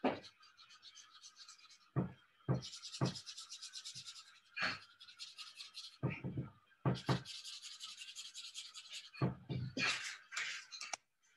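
A black pen scribbling fast back and forth on a paper plate, colouring in a patch, in runs of quick scratchy strokes. A few dull knocks come between the runs.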